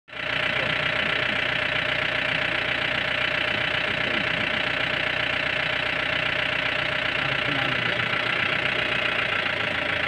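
Safari vehicle's engine idling steadily.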